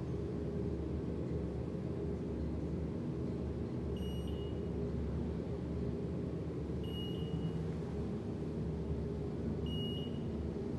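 Passenger elevator car travelling upward with a steady low hum, and three short high beeps about three seconds apart as the car passes floors.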